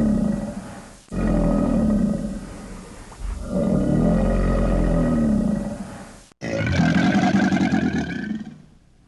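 Crocodile calls: a run of low, rumbling roars, each two to three seconds long, that stop abruptly between one and the next. There are about three calls in all. The last one, about six seconds in, is rougher and raspier than the rest.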